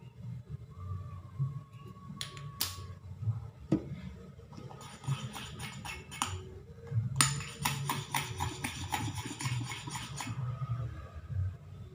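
Sticky homemade slime being worked in a bowl after a few drops of baby oil, giving a couple of separate clicks about two seconds in, then a dense run of wet clicks and crackles from about five to ten seconds in.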